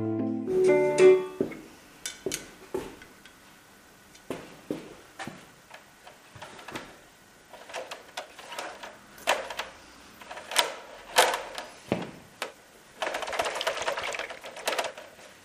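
Music ends about a second in, followed by irregular light clicks and knocks of hand work on the rotor blade parts, with a short scraping rush near the end.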